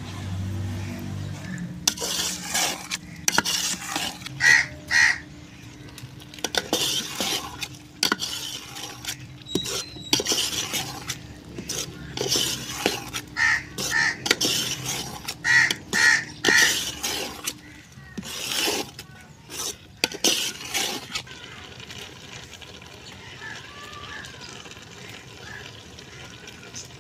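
A perforated metal spoon stirs and scrapes a thick, crumbly milk-and-sugar mixture around an aluminium pot in irregular strokes, with light metallic clinks against the pot. The mixture is being stirred dry as the water from the added sugar cooks off. The stirring stops about 21 seconds in.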